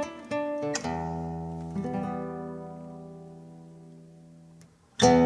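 Music: an acoustic guitar chord strummed about a second in and left to ring, fading slowly almost to nothing, then a loud strum near the end.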